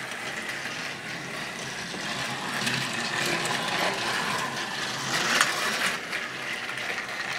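Battery-powered TrackMaster toy trains running on plastic track: a steady motor whine with the rattle of wheels on the track.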